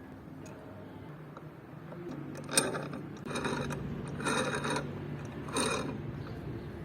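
Hand-cranked grinder turning with a steady low whir from its gearing. Four short, bright scraping bursts come about a second apart over it.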